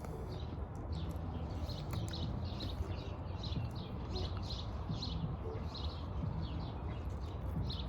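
Birds chirping steadily, a few short high chirps each second, over a constant low outdoor rumble.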